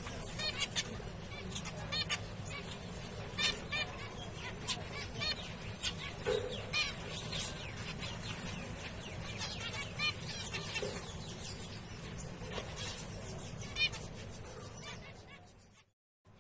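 Zebra finches calling: short, sharp calls repeated many times throughout, fading out just before the end.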